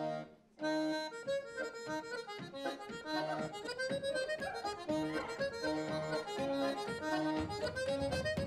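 Accordion playing a lively traditional Irish dance tune. It starts with two short notes, then gets going about half a second in, and a heavier low beat joins near the end.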